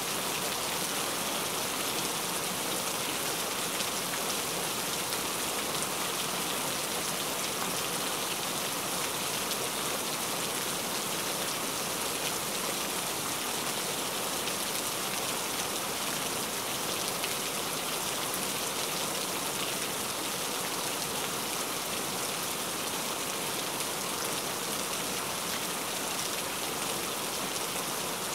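Rain falling steadily, an even hiss that holds at one level throughout.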